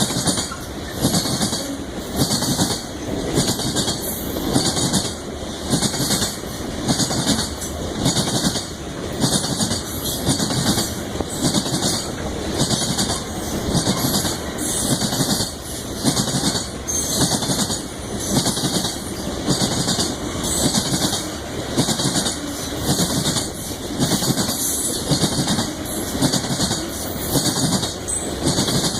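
Freight cars of a CSX train rolling past, their wheels clicking over the rail joints in a steady rhythm over a continuous rumble.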